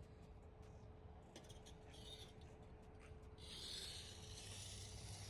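Faint scraping of dirt on pavement, a rasping sound that starts about three and a half seconds in, as the mud left by the dig is scraped up. A faint steady hum stops shortly before the end.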